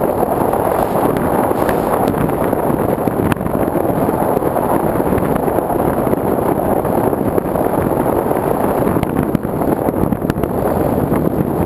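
Sky Surfer RC foam plane in flight, heard from its onboard camera: a steady rush of air over the airframe mixed with its electric motor and propeller running.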